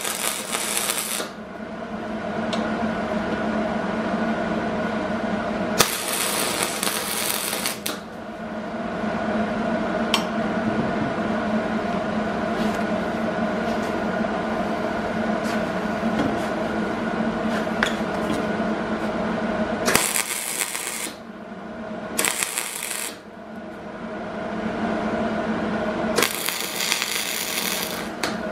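MIG welder (Hobart Handler 140) laying short welds on steel: five separate bursts of crackling arc, each one to two seconds long, with the longest about six seconds in and the last near the end. A steady machine hum runs underneath and between the welds.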